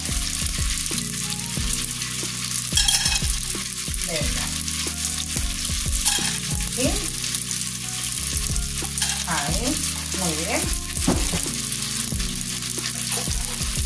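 Olive oil sizzling steadily in hot frying pans: halved cherry tomatoes frying in one, with raw clams being laid into the other.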